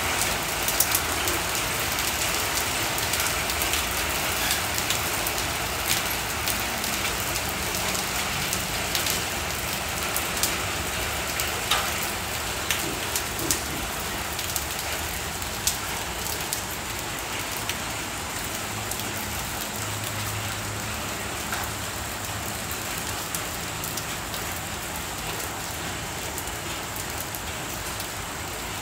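Heavy rain mixed with small hail pouring onto a concrete driveway: a steady hiss of rain with scattered sharp ticks of hailstones striking, the ticks thinning out and the downpour easing slightly toward the end.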